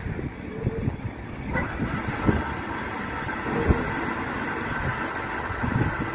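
Siemens Desiro electric multiple unit creeping into a depot train wash: a low rumble with a few sharp clanks. A steady faint whine sets in about a second and a half in.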